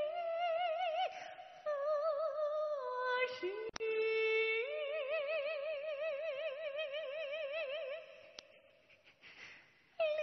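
A male singer in a female role singing a slow song in a high, woman-like voice. He holds long notes with a wide vibrato and glides between pitches. The voice drops away for about two seconds near the end, then comes back.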